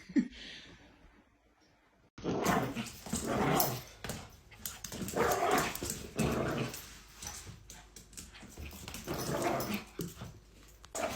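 A dog vocalizing in several long bouts, starting suddenly about two seconds in after a near-silent stretch.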